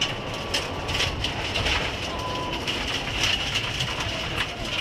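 Mitsubishi Lancer Evo IX rally car's turbocharged four-cylinder engine running hard, heard from inside the cabin, over steady road noise, with gravel and stones knocking against the underbody many times.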